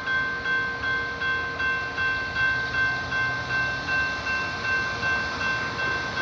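Railroad grade crossing bell ringing steadily, about two and a half strikes a second.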